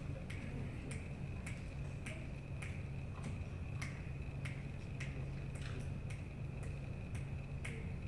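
Finger snaps keeping a steady beat, a little under two a second, over a low steady hum.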